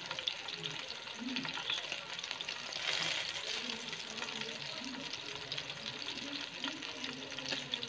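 Whole masala-coated stuffed chicken shallow-frying in hot oil in a nonstick pan: steady sizzling with many small crackles, a little louder about three seconds in.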